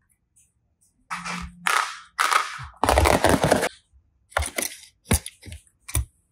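Plastic toys being handled and set down on a tabletop: a few noisy scraping bursts, then several sharp clicks and taps.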